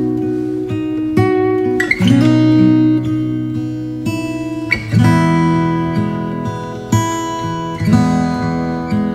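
Background music of strummed acoustic guitar chords, a new chord sounding every second or so.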